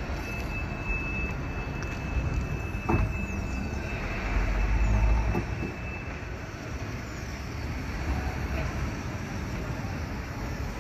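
Double-deck tram running past on street rails, its wheels and running gear rumbling, with a thin steady high squeal in the first few seconds. A couple of sharp knocks come through, and the low rumble is loudest about four to five seconds in.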